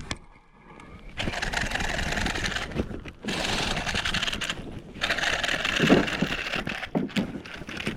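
Fishing reel being cranked in bursts during a lure retrieve, a fast, even whir that starts about a second in and pauses briefly twice.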